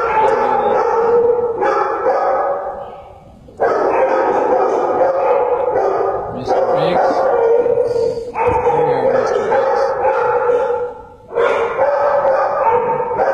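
Shelter dogs barking and howling together in long stretches, with a lull about two to three seconds in and a brief dip near eleven seconds.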